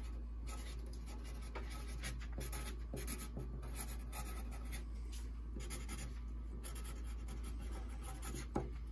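Felt tip of a Sharpie marker scratching across drawing paper in short, quick strokes while lettering, with one small knock near the end.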